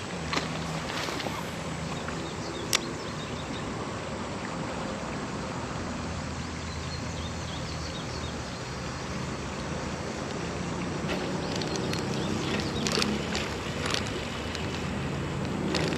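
Steady traffic noise from a busy road and highway, low engine drones swelling and fading as vehicles pass, over the wash of a shallow creek, with a few sharp clicks.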